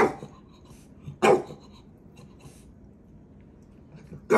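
Small dog barking at another dog in play: short single barks, one at the start, another about a second later, and a third right at the end after a quiet pause.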